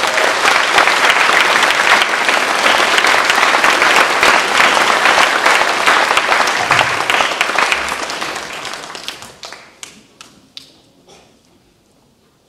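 Audience applauding, dense for about eight seconds, then thinning to a few scattered claps and dying away near the end.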